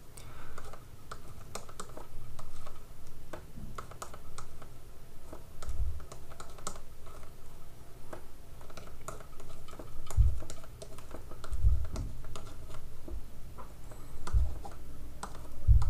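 Plastic stylus clicking and tapping on a pen tablet during handwriting, a quick irregular run of small clicks. A few dull low thumps come through several times, loudest near the end.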